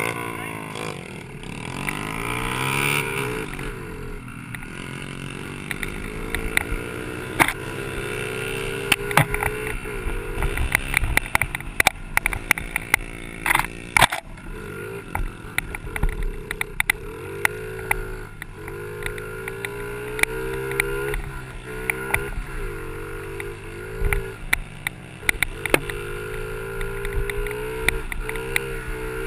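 Small Honda 50cc four-stroke minibike engine being ridden hard, its note climbing and dropping back again and again as the throttle and gears are worked. Frequent sharp knocks and wind buffeting from the rough trail ride.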